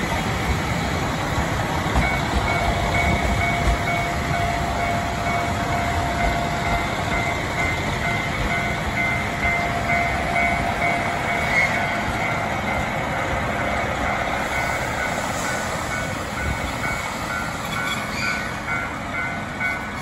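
Limited-express diesel railcar train running along the track, a steady rumble of engines and wheels on rail with faint high whines over it.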